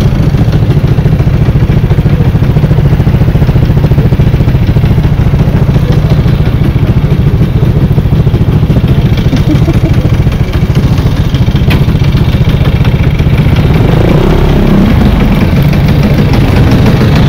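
Motor scooter engine running steadily close by, with one short click about two thirds of the way through.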